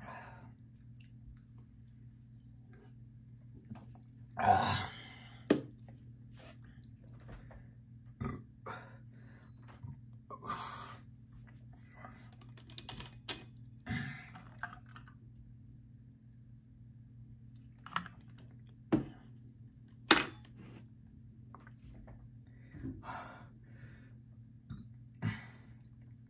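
Mouth sounds of someone sipping and tasting sparkling water: sips, swallows and lip smacks, heard as scattered short sounds and clicks. The loudest is a short rough burst about four and a half seconds in.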